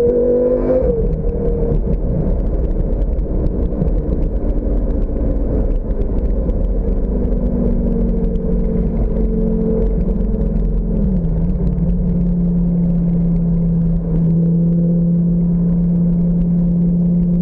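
Lamborghini roadster's engine running at motorway speed with the top off, heard from the cabin over a heavy rumble of wind and road noise. The engine note steps down in pitch about a second in and again around eleven seconds in, then holds steady.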